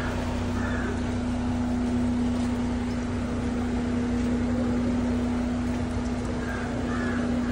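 Crows cawing, twice near the start and twice near the end, over a steady low hum.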